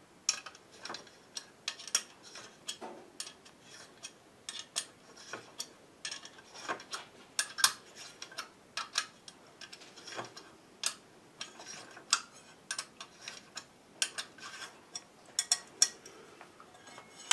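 Irregular small metallic clicks and scrapes of a coin turning screws in an aluminium laptop stand, used in place of a screwdriver to tighten the parts together.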